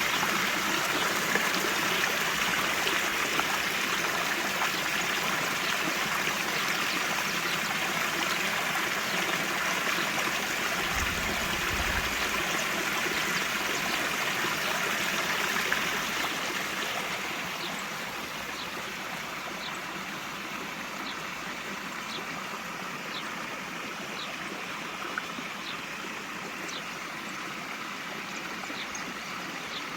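Water cascading over small waterfalls in a steady rush. About two-thirds of the way through it drops in level, and a bird repeats a short high chirp about once a second.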